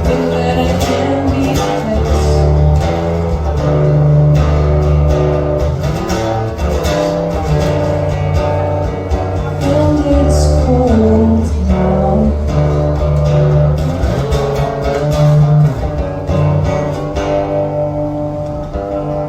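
Live song performance: guitar with a sung melody over sustained low bass notes, the music dropping in level in the last couple of seconds as the song winds down.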